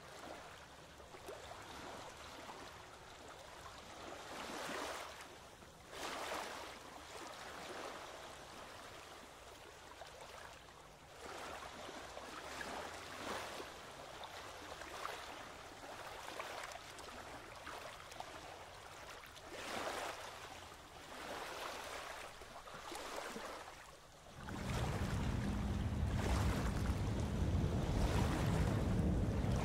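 Small waves washing against a rock shoreline, coming in irregular surges every second or two. About 24 seconds in, a much louder, steady low rumble takes over.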